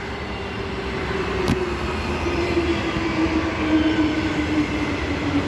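Six-car Transperth B-series electric train pulling into the platform, its motor whine slowly falling in pitch as it slows, with a single click about a second and a half in. The wheels run without squealing.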